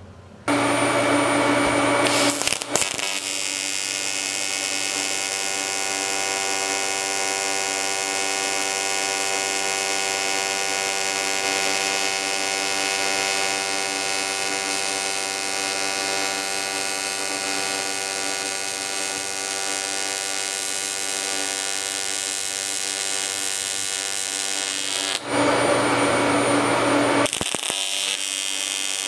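AC TIG welding arc on aluminum from an HTP Invertig 221, a steady electric buzz as a bung is welded on. It starts about half a second in and is louder and harsher for a couple of seconds at the start and again about 25 seconds in.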